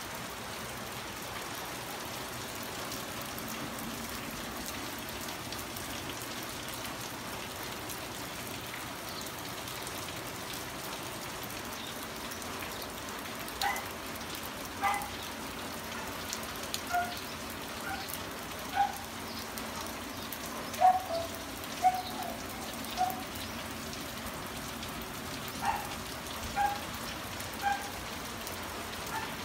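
Steady rain falling on a garden, an even hiss. From about halfway through, irregular sharp plinks of heavy drops ring out loudly over the hiss, a dozen or so of them.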